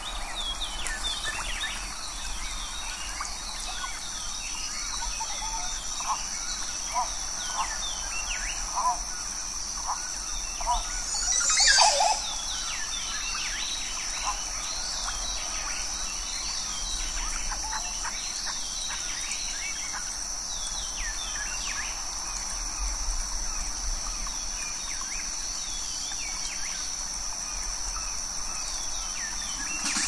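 Rainforest ambience: a steady high-pitched drone under many short, falling chirping animal calls. About twelve seconds in there is a louder burst of calls, and another begins near the end.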